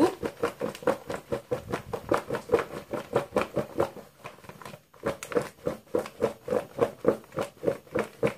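Strips of green mango tossed by shaking them in a plastic tub, a quick rhythmic knocking and slapping at about five shakes a second. The shaking pauses briefly nearly five seconds in, then starts again.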